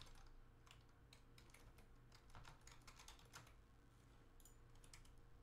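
Faint typing on a computer keyboard: an irregular run of quick key clicks, with a short pause near the end.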